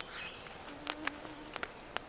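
A fly buzzing near the microphone for about a second in the middle, with a few short, sharp clicks scattered around it.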